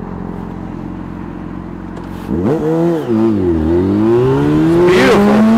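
Yamaha FZ6 Fazer's inline-four engine, fitted with a LeoVince exhaust, idles and then revs up about two seconds in as the motorcycle pulls away from a stop. Its pitch dips briefly, then climbs steadily as it accelerates.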